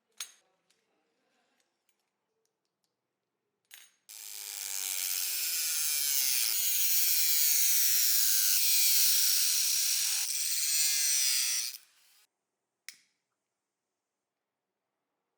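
Aerosol spray can hissing in one long spray of about eight seconds. It swells in about four seconds in and cuts off sharply near twelve seconds. A few sharp clicks come before it and one after.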